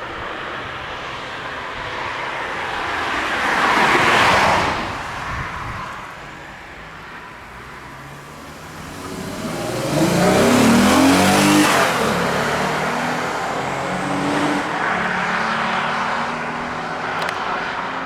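Cars going by on a road: one passes about four seconds in, then another engine accelerates hard, rising in pitch around ten seconds in, and runs on steadily past.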